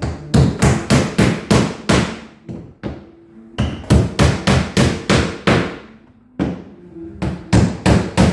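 Hammer blows in quick runs of several sharp strikes, about two or three a second, separated by short pauses, as new ribs are fitted and fastened in a wooden boat hull.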